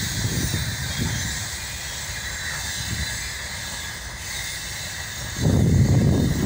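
Freight train of open gondola wagons rolling past: a continuous rumble of wheels on rail with a steady hiss above it. It eases through the middle, then jumps abruptly louder about five seconds in.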